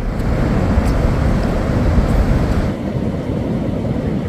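Wind rumbling on the microphone over breaking ocean surf: a loud, steady noise heaviest in the low end. The higher hiss thins out about two-thirds of the way in.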